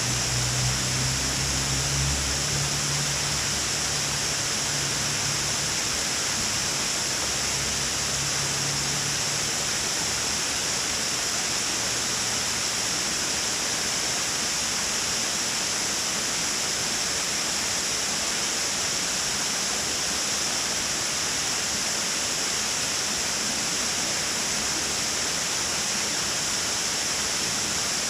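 Water pouring over a mill dam: a steady rushing waterfall noise, with a faint low hum under it for about the first ten seconds.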